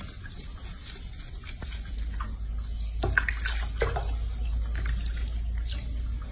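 Soapy water sloshing and splashing in a sink as hands lather and rub a young monkey's wet fur, with a run of brief splashes from about three seconds in, over a low steady hum.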